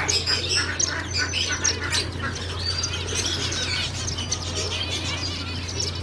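A flock of zebra finches giving many quick, high, overlapping chirps, over a steady low hum.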